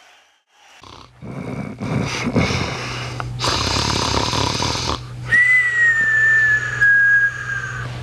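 Cartoon-style snoring: a rasping snore on the in-breath, then a long whistle on the out-breath that falls slightly in pitch.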